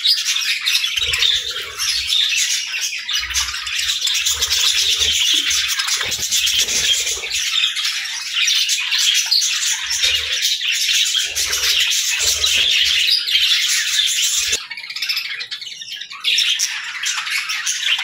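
A flock of budgerigars chattering and chirping nonstop, a dense high twittering of many birds at once. Dull low thumps come and go through most of it. The chatter drops off briefly a few seconds before the end, then picks up again.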